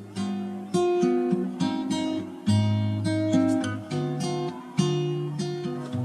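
Background music on acoustic guitar: plucked notes and strummed chords in a steady, unhurried pattern.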